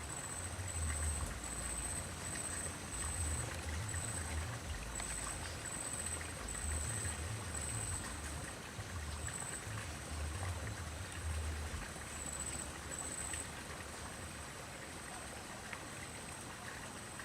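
River water flowing steadily, under a low uneven rumble. A high, thin buzzing repeats two or three times a second through the first half, stops, and comes back briefly later.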